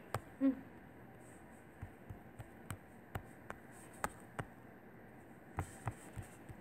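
Light taps on a tablet touchscreen while drawing: about a dozen short, sharp clicks at uneven intervals, bunched in the middle and again near the end, over a faint steady hiss.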